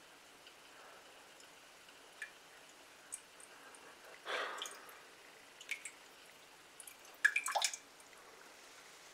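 Water dripping and trickling from a kitchen sink tap into a mug, kept slow and quiet, with scattered single drops and a short splash a little past four seconds. The loudest sound is a quick cluster of sharp clicks or clinks at about seven and a half seconds.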